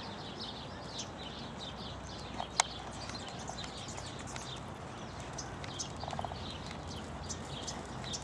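A horse's hooves trotting on sand arena footing, a steady rhythm of soft beats. A single sharp click a little over two seconds in is the loudest sound.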